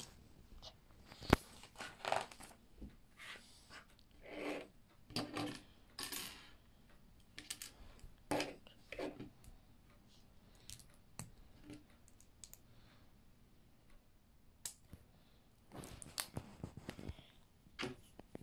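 Plastic LEGO bricks clicking and rattling as pieces are picked out and pressed together, in scattered short clicks and rustles with one sharp click about a second in.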